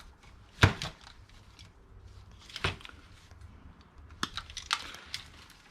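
Old plastic chargers and cords being handled and sorted: a few sharp knocks and clicks, the loudest about half a second in, with lighter taps and rustles in between.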